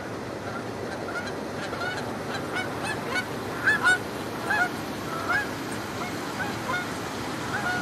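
Flock of Canada geese honking repeatedly in alarm as they are flushed off a pond by a herding dog and take flight. The calls come thick and fast, loudest about four seconds in, over a steady background hiss.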